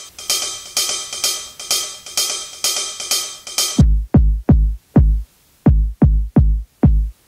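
Electronic techno samples from a sample pack. First comes a looped percussion pattern of quick hits with ringing tones, about three hits a second. Just under four seconds in, it gives way to a run of deep drum-machine kick one-shots, each dropping quickly in pitch, played in two groups of four and five.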